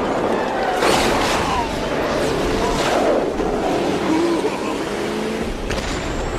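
Action-film chase soundtrack: heavy vehicle engines and rushing noise, with sharp explosion hits about one, three and six seconds in.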